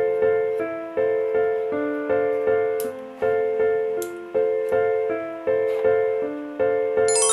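Background music: a light piano or electric-keyboard tune played as an even run of notes, almost three a second, over a simple lower line.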